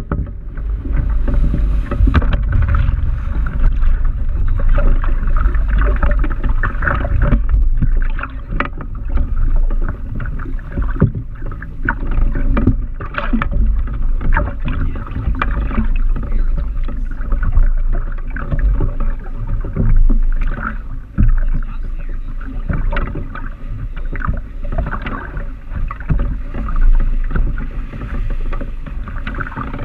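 Seawater splashing and sloshing against a hang glider afloat after a water landing, with many short irregular splashes over a low steady rumble.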